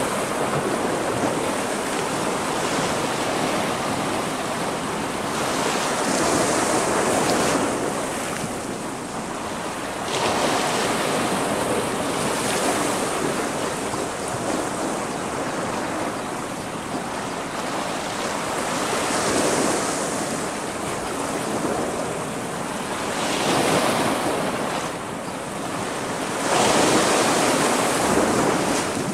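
Sea waves washing in and breaking against the rocky shore just below, a steady rush of surf that swells louder every few seconds as each wave comes in.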